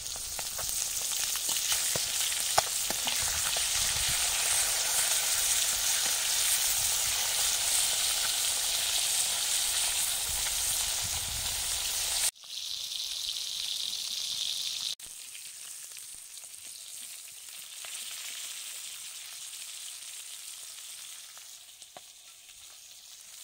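Fish pieces sizzling as they fry in hot oil in an iron kadai, with a few clicks of a steel spatula turning them. The sizzle drops suddenly about twelve seconds in and again about three seconds later, staying quieter to the end.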